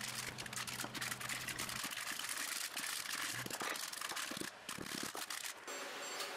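Metal heat-treating foil being folded and creased by hand around a blade: faint, irregular crinkling and small ticks. About five and a half seconds in it gives way to a steady low shop hum.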